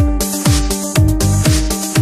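Electronic dance music with a steady kick drum, about two beats a second, over sustained synth tones.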